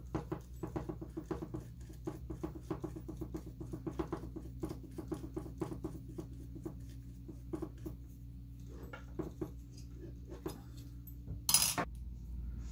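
Small plastic and metal kit parts clicking and ticking rapidly as they are handled and turned by hand, thinning out after about six seconds, with one louder clatter near the end. A steady low hum runs underneath.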